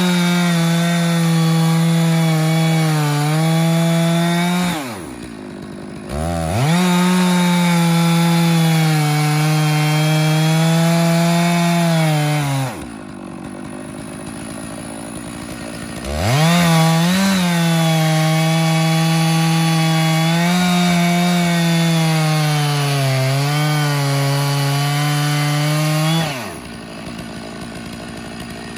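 Stihl 660 Magnum two-stroke chainsaw in an Alaskan chainsaw mill, at full throttle ripping lengthwise through a log. It drops to idle twice, at about 5 and 13 seconds, and revs back up into the cut each time, then falls back to idle near the end.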